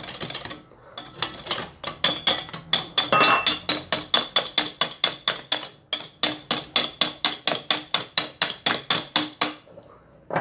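Wire whisk beating a runny egg, sugar and oil mixture in a glass bowl, the wires clicking against the glass about five times a second. The beating pauses briefly twice and stops just before the end.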